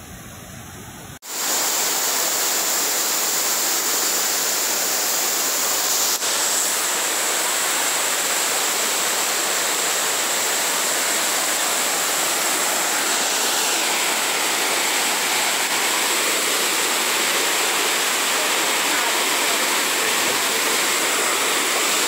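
Steady rushing of a waterfall and its rocky stream cascades, coming in loud about a second in.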